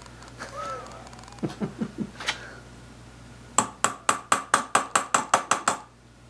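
Hammer tapping a steel punch to drive the shaft out of a Hendey lathe's quick-change gearbox. A few dull knocks come first, then about three and a half seconds in a quick, even run of a dozen or so ringing metal strikes at about six a second.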